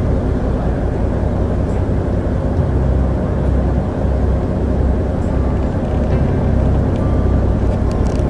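Steady low rumble of a cruise boat under way, heard from its open deck.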